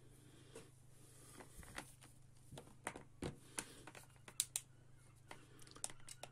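Scattered light clicks and taps of hard plastic being handled: a hunting torch and its coiled-cord remote tail switch picked up and fiddled with, with a quick run of clicks near the end.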